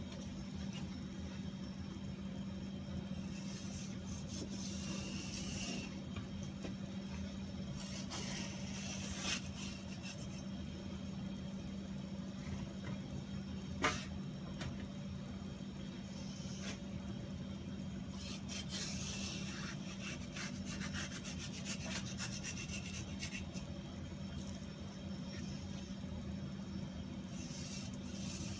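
A knife cutting and scraping through bluefin tuna flesh in bouts of rasping strokes, over a steady low hum, with one sharp click about halfway through.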